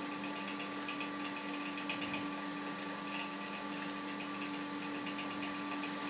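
Steady hum of a motor or appliance with faint, irregular light ticks over it.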